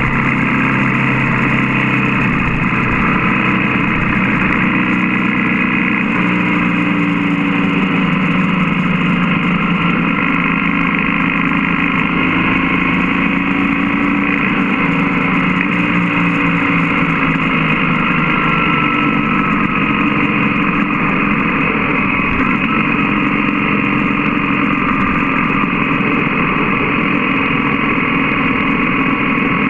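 BMW GS boxer-twin motorcycle engine running steadily at road speed, its pitch shifting a little as the throttle changes, under loud wind rush on the bike-mounted microphone.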